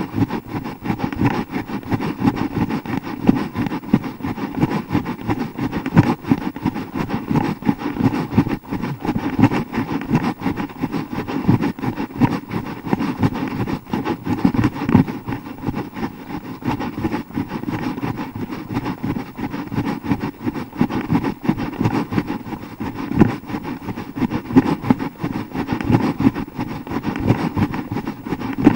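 Wind buffeting and handling noise on a hand-held action camera's microphone while running: a constant low rumble broken by frequent irregular knocks.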